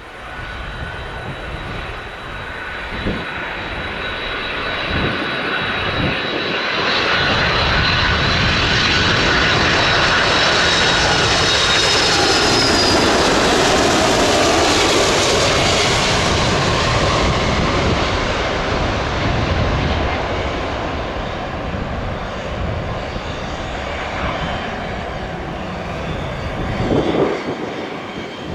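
Boeing 767-300ER jet engines on a landing approach as the airliner passes: a steady roar with a high fan whine that swells to its loudest about halfway through, then slowly fades.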